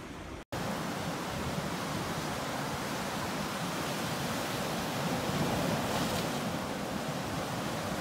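Sea surf breaking and washing along a shore: a steady rushing roar of waves. There is a brief dropout to silence about half a second in, after which the surf is a little louder.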